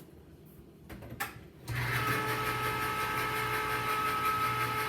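A couple of clicks, then a small electric can opener's motor starts about a second and a half in and hums steadily as it cuts open a can of pigeon peas (gandules).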